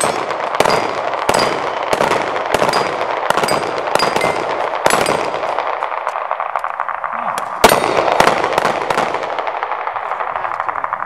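Rapid handgun shots at steel plates, about one every two-thirds of a second, some followed by a short metallic ping from a hit plate, with echo after each shot. The firing breaks off about five seconds in, then resumes with a few more shots near the eight-second mark.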